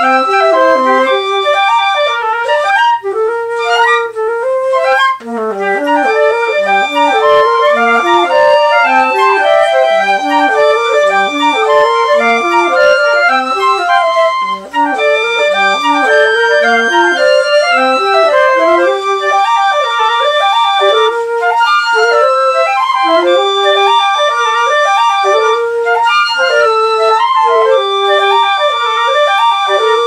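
A trio of flutes playing a fast-moving piece together, with several quick note lines sounding at once. There are a few brief dips in the playing about 3 to 5 seconds in and again about halfway through.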